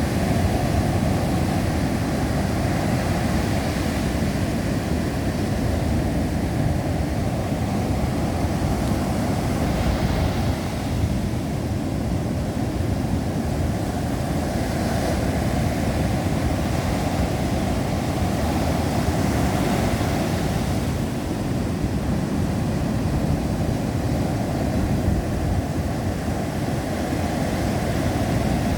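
Strong wind buffeting the microphone with a steady low rumble, over Atlantic surf breaking on the shore; the hiss of the waves swells a few times.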